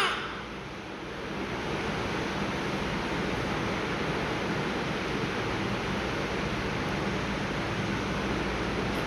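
Steady rushing hiss with a faint low hum underneath. It builds over the first second and a half, then holds level.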